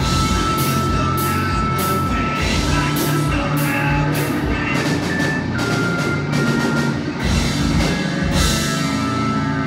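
Live rock band playing: a drum kit with cymbal hits over electric guitar and bass guitar, amplified through the stage PA.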